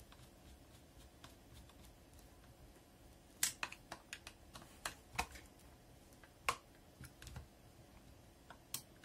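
Light, irregular clicks and taps of a hand tool and small parts against the chainsaw's carburetor and plastic housing as the carburetor is fitted. There are about a dozen over roughly four seconds, starting a few seconds in, and one more near the end.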